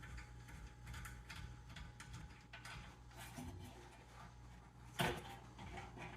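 Faint, irregular metallic clicks of a 3/8-inch wrench working loose a fuel-line fitting on a small engine, with one louder clack about five seconds in.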